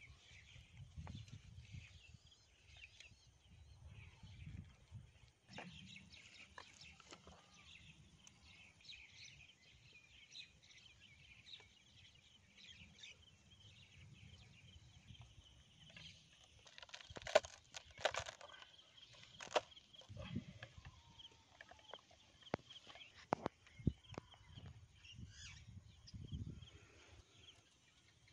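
Faint rural background with chickens clucking and small birds calling, broken by a few sharp clicks and knocks in the middle.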